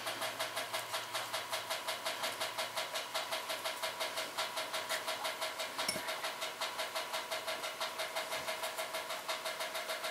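A machine running steadily in the background, a constant hum that pulses rapidly, about seven times a second, with one short click about six seconds in.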